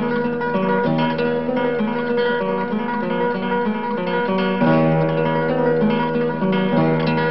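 Background music played on acoustic guitar, a steady run of notes and chords.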